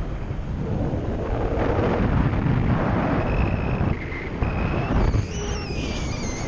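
Wind rushing over the microphone of a camera on a paraglider in flight: a steady low buffeting rumble. A faint high whistle comes and goes, sliding down in pitch near the end.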